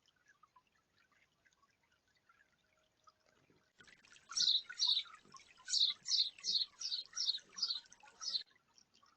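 Water in a tiered bird bath fountain: a faint trickle, then from about four seconds in a run of about ten quick splashes, roughly two a second, that stop shortly before the end.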